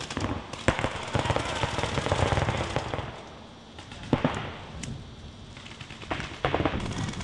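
Paintball markers firing: rapid, irregular strings of sharp pops, thickest in the first three seconds, then a few scattered single shots.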